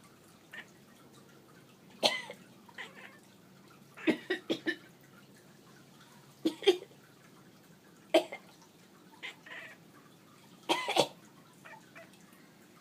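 A run of short coughs from a person and a cat coughing in turn, coming every second or two. Some come singly and some in quick pairs or threes, and the loudest are near the end.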